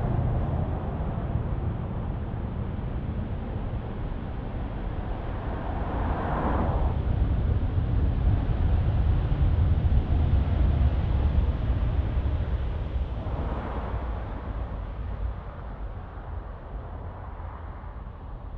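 Engines of a Boeing 747-8 freighter rumbling as it rolls out on the runway after landing; the noise eases, swells to its loudest about halfway through with two brief rushing surges, then fades away.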